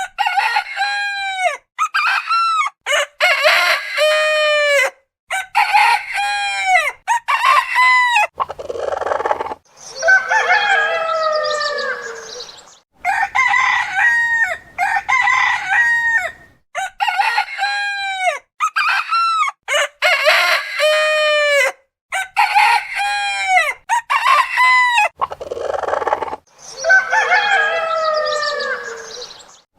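Roosters crowing: runs of short calls that fall in pitch, and two long crows, one about ten seconds in and one near the end. Each long crow follows a short rush of noise.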